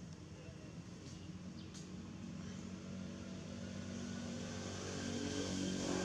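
A motor vehicle's engine steadily drawing nearer and louder, passing close near the end with a bend in its pitch.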